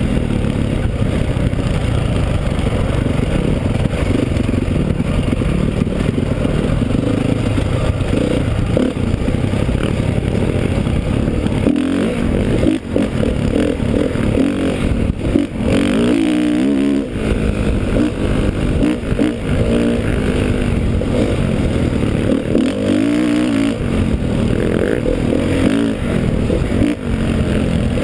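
Dirt bike engine running hard along a rough trail, its pitch repeatedly rising and falling as the throttle is opened and closed, with several brief drops in revs.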